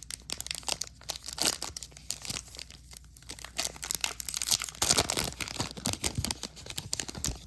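Foil wrapper of a hockey card pack crinkling and tearing as it is ripped open, with a busier stretch of crackling in the middle.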